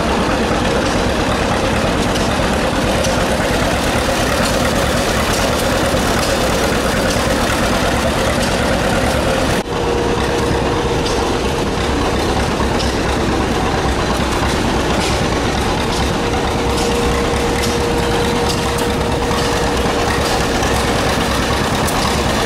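A Red River Special threshing machine running on a flat belt drive from a tractor: a loud, steady mechanical clatter and hum with a steady whine over it. The sound drops out briefly about ten seconds in.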